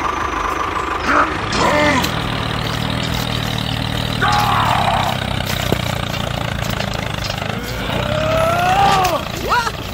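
A tractor engine running steadily, heard together with several short squeaky, cartoon-like voice calls that swoop up and down in pitch. The longest call rises and then falls near the end.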